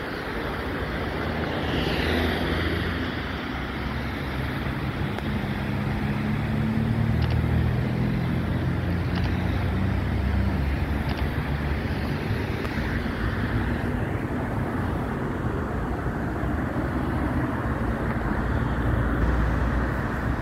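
Road traffic: a steady rumble of passing cars' engines and tyres on a city road.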